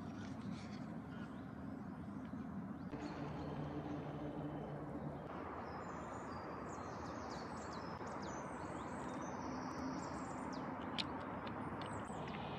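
Outdoor ambience: a steady rushing background noise with small birds chirping, the chirps starting about halfway through. The background changes abruptly twice in the first half.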